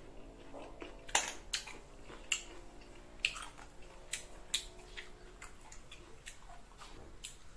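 Close-up chewing of crisp green mango: irregular wet crunches and clicks, a few of them sharp and loud.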